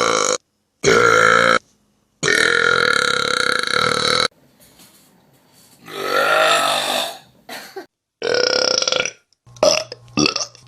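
A string of loud human burps, one after another with sudden starts and stops: a short one at the start, another about a second in, then a long drawn-out belch of about two seconds, followed by several shorter burps, the last few quick and brief.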